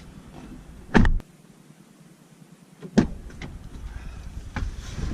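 Two loud knocks about two seconds apart, the first followed by a brief hush, then a few lighter clicks.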